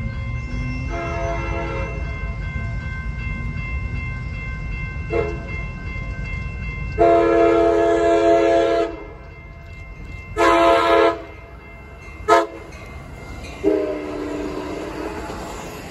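Amtrak Pacific Surfliner train horn sounding several blasts as the train approaches and passes: short blasts about a second and five seconds in, then a long blast, a shorter one, a very short toot and a final blast that fades as the train goes by. This is the grade-crossing warning pattern. The train's low rumble runs underneath throughout.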